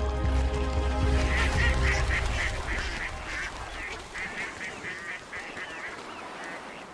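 Bald eagles calling: a quick run of short, high, piping notes, about five a second, that fades toward the end. Music fades out under it in the first couple of seconds.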